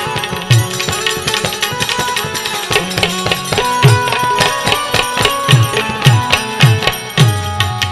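Instrumental break in a Gujarati devotional folk song: a hand drum plays a steady rhythm with bass strokes that bend downward in pitch, over jingling percussion and a held melody line, without singing.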